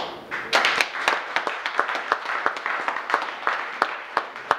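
Small audience applauding at the end of a poem: a thick burst of clapping that thins to a few separate hand claps.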